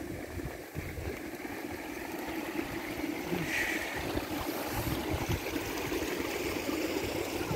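Wind buffeting the microphone in irregular low thumps over a steady low hum of outdoor background noise, with a brief higher sound about three and a half seconds in.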